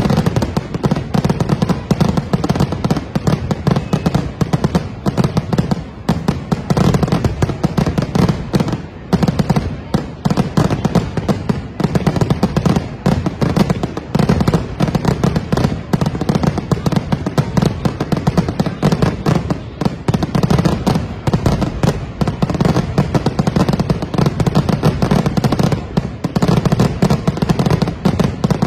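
Aerial fireworks finale: a dense, unbroken barrage of shell bursts, many reports a second overlapping with no let-up.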